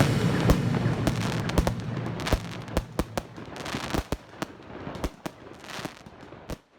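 Fireworks going off: many sharp bangs at irregular intervals over a haze of more distant bursts, the whole thinning out and growing quieter.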